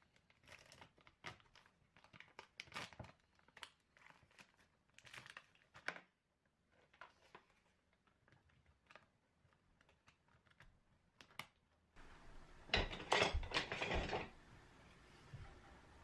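Thin plastic film crinkling and rustling as it is peeled off a plastic tub of soybean paste, with small irregular plastic clicks as the tub's hinged lid is handled. Near the end comes a louder burst of plastic rustling and clatter.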